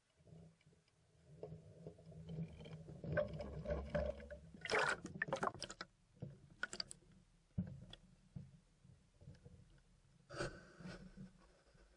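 Water sloshing and gurgling around a camera as it is dipped into a river and goes under, with a few sharp knocks, loudest about halfway through and again near the end.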